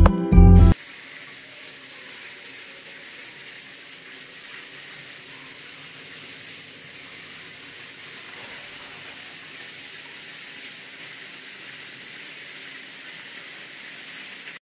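Handheld showerhead running, its spray falling steadily into a tiled shower stall as an even hiss that cuts off just before the end.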